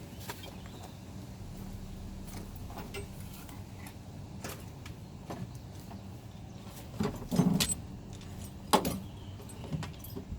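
Scattered metallic clinks and knocks over a low steady hum, with a louder clattering about seven seconds in and a single sharp knock just after.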